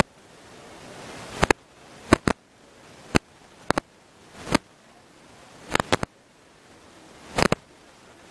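A string of about a dozen sharp clicks or knocks at irregular intervals, some in quick pairs, over a faint hiss that swells between them.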